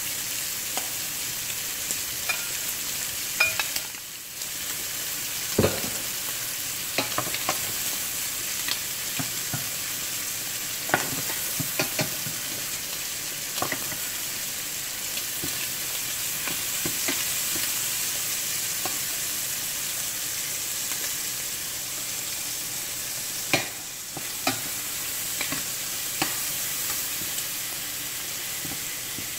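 Shrimp sizzling in hot oil in a stainless steel pan, a steady hiss, with scattered sharp clicks and taps of metal tongs against the pan as the shrimp are turned.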